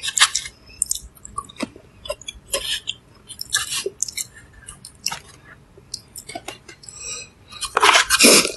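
A person chewing food close to the microphone during a mukbang: irregular wet clicks and smacks from the mouth. A louder noisy burst comes near the end.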